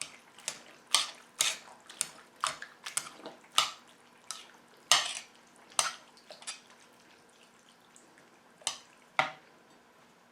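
A spoon clinking irregularly against the side of a dish while stirring salt into mashed pears. The clinks come thick and fast for about six seconds, then two more follow near the end.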